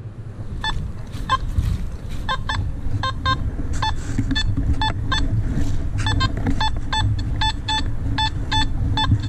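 Nokta Makro Simplex metal detector giving short target beeps, two to three a second and often in quick pairs, over a steady low rumble.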